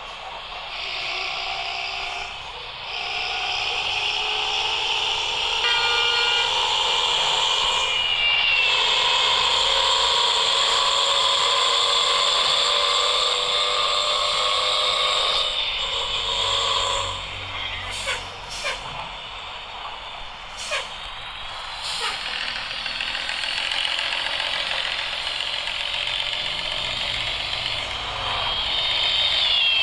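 Nissan CB bus's diesel engine with its snoring ('ngorok') exhaust, rising in pitch as it accelerates, holding steady, then easing off. A few sharp clicks or short hisses come about two-thirds of the way in.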